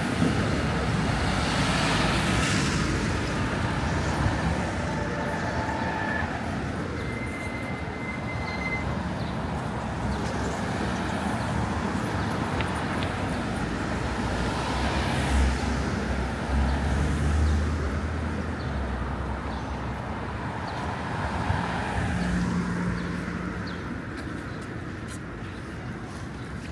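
City street traffic: cars passing with steady road noise, and a heavier vehicle's low engine rumble for a few seconds past the middle.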